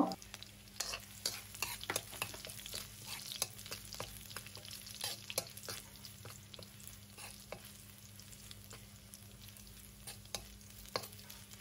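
Minced garlic frying in a little oil in a wok: faint sizzling with scattered small clicks as a metal spoon stirs and scrapes it around the pan.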